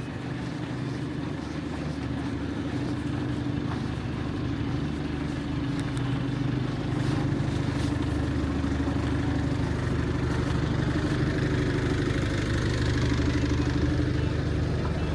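A motor vehicle's engine running steadily close by with an even pitch, getting a little louder in the second half, over general street noise.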